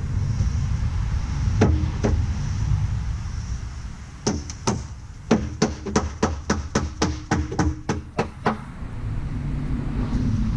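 A small dead blow hammer knocking wooden shelf cleats down onto the rungs of a display tower: two knocks, then a quick run of about fifteen blows at roughly three a second, each with a short wooden ring. The new, tight-fitting parts need the hammer to seat them. A low rumble runs underneath at the start and again near the end.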